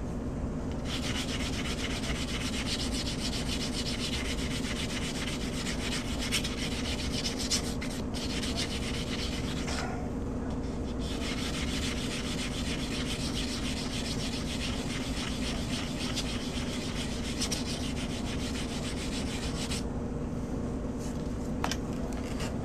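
Steady abrasive rubbing, like hand sanding, in two long spells. It breaks off about ten seconds in and stops a couple of seconds before the end. A constant low hum runs underneath.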